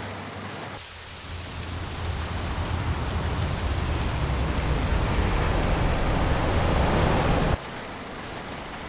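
International truck's diesel engine revving, a loud rushing noise over a low rumble that builds for several seconds. It then drops off abruptly to a lower, steady running sound.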